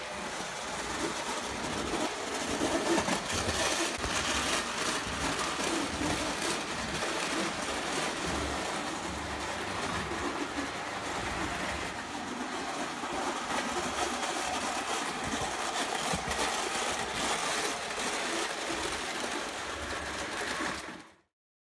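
Prewar Lionel O gauge tinplate train running: a steady mechanical rumble and clatter from its motor and wheels on the metal track, with frequent small clicks. It cuts off abruptly near the end.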